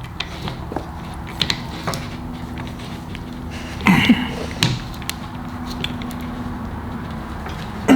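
Hand work on a DeWalt hammer drill's chuck as a Torx bit is set in to reach the chuck screw: scattered small clicks of metal parts, with two short creaks about halfway through, over a steady low hum.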